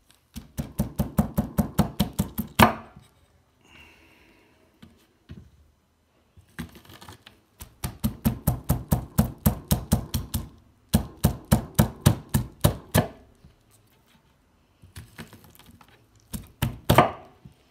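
Kitchen knife sawing through a fresh corn cob on a wooden cutting board: quick rhythmic strokes, about six a second, in several runs of a few seconds with short pauses, with one louder knock near the end.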